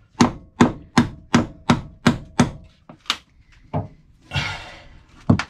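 Hammer blows struck upward inside a boat's fridge compartment while the fridge is being dismantled: a quick run of about seven strikes, roughly three a second, then a few slower blows, with a brief scraping about four seconds in.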